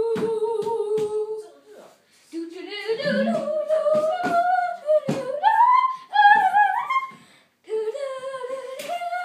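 A high young voice singing a wordless tune, long notes sliding up and down in phrases with short breaks. Sharp thumps of feet on a wooden floor from the dancing come through here and there.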